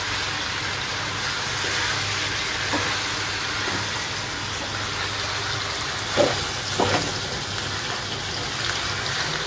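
Chicken pieces frying in oil with garlic and ginger in a wok, a steady sizzle as they are stirred with a spatula. There are two brief louder sounds about six and seven seconds in.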